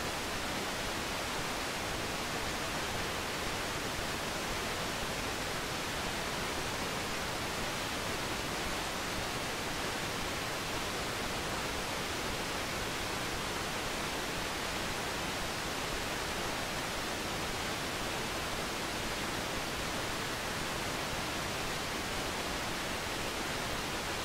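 Steady, even hiss with nothing else audible over it.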